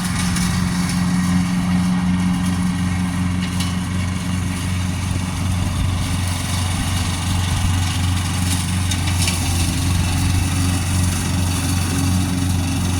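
Riding lawn mower engine running steadily at idle.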